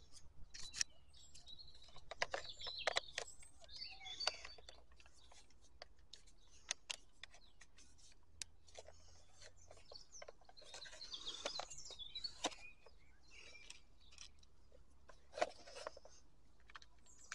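Plastic housing parts of a Stihl MSA 120 C battery chainsaw being handled and fitted back together by hand: scattered clicks, taps and light knocks of plastic, with birds chirping in the background.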